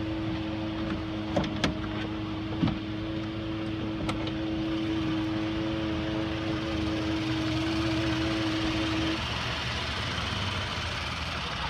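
Steady-pitched whine from a 2014 Ford F-150's transmission over the truck's road and engine noise, which the owner takes for a transmission fault; the whine cuts off about nine seconds in. A few short clicks sound in the first few seconds.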